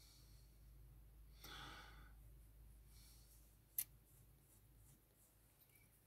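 Near silence, with a soft exhale about a second and a half in and one short click about two seconds later.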